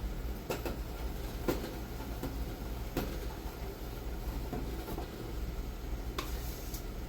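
Scattered light clicks and knocks, about eight, spread unevenly over a steady low hum.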